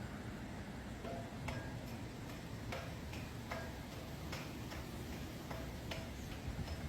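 Walking on hard ground with hiking sticks: a steady series of sharp clicks and taps, roughly one every 0.8 seconds, over a low background rumble.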